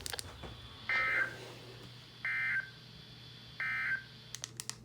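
Three short bursts of NOAA Weather Radio SAME digital data, the buzzy two-tone EAS data signal, each about a third of a second long and about a second and a half apart. Bursts this short are the end-of-message code that closes a weekly test. Faint receiver hiss and hum run underneath, with a few sharp clicks near the end.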